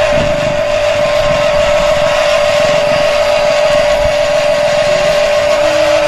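A steady engine-like drone: a constant high whine over a rough rumble, at an even level.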